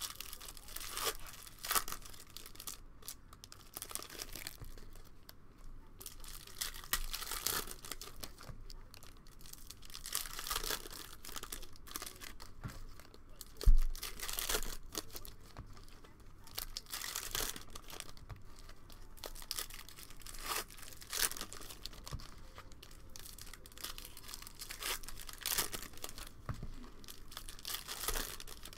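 Foil trading-card pack wrappers crinkling and tearing as they are peeled open by hand, in irregular rustles throughout. A single sharp thump about halfway through.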